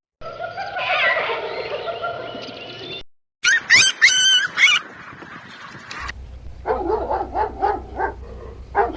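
Three short animal-call recordings in a row, separated by brief silent cuts: a noisy, mixed stretch of calls, then a burst of sharp high chirping, then a run of repeated honking calls at about three a second.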